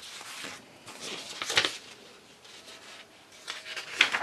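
Paper pages of a paperback colouring book being handled and turned by hand: soft rustling, with louder swishes of the page about one and a half seconds in and near the end.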